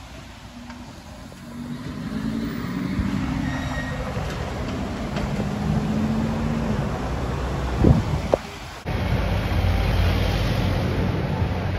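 Lamborghini Huracán Spyder's V10 engine revving as the car pulls away, its pitch rising and then holding steady, with two sharp cracks near eight seconds in. After an abrupt cut, a lower, steady engine rumble as a London taxi passes close.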